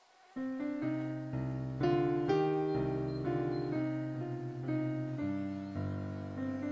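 Background piano music: a slow run of held chords that comes in about half a second in.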